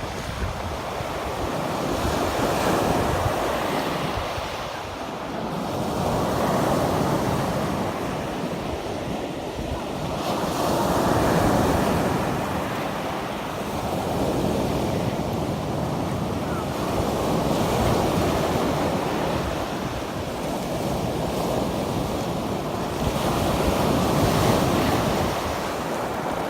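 Stormy sea surf: waves breaking and washing in, the noise swelling and falling back every few seconds, with wind buffeting the microphone.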